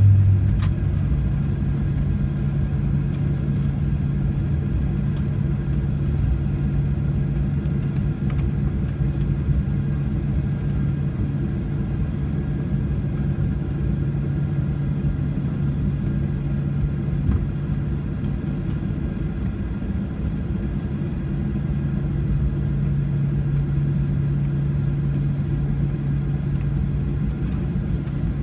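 Cabin noise of a Boeing 737-800 taxiing after landing: its CFM56-7B engines idling with a steady low hum over the rumble of the wheels on the ground.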